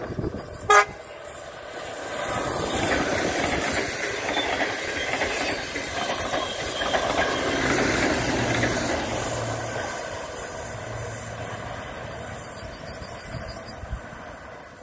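An NS Koploper (ICM) electric multiple unit gives one short horn toot less than a second in, a greeting from the driver. The train then runs past with wheels rumbling on the rails, loudest in the middle and fading away near the end.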